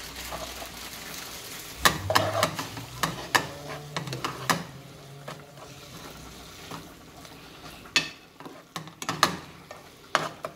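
Chopped tomatoes and onions sizzling in a non-stick frying pan while a metal spoon stirs them, the spoon clicking and scraping against the pan in two spells, about two seconds in and again about eight seconds in.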